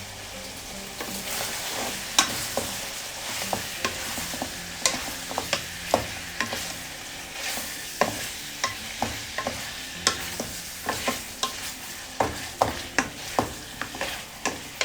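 Chicken pieces and onion sizzling in hot oil in a thin-bottomed handi (cooking pot) while a spoon stirs in fresh garlic and ginger paste. The spoon scrapes and knocks against the pot in irregular clicks over a steady sizzle.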